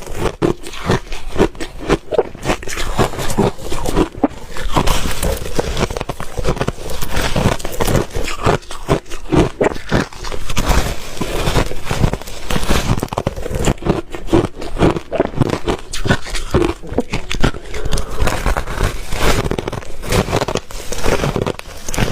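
Ice being bitten and chewed close to the microphone: a continuous run of loud, rapid crunches and crackles.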